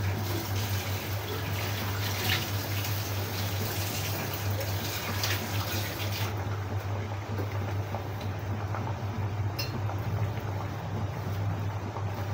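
Braising sauce with fish and Japanese tofu simmering in an uncovered wok on a gas burner, bubbling steadily as it comes back to the boil, over a steady low hum.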